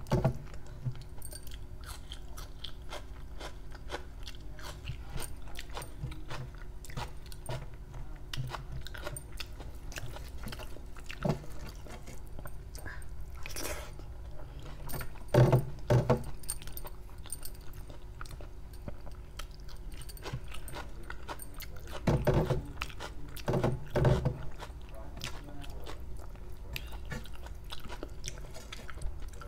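Close-up chewing and wet mouth sounds of someone eating rice and curry by hand, with fingers squishing and scraping rice across a steel plate. Short crackling clicks run throughout, with a few louder moments in the second half.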